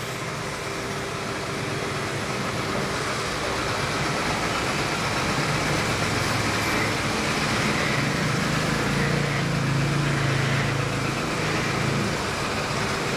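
Two robot vacuum-mops, an Ecovacs Deebot T9 and a Roborock S7, running together with their vibrating mop pads on. They make a steady motor-and-fan hum with a low buzz, growing a little louder over the first few seconds. The T9 is quite noisy when mopping, the S7 quieter.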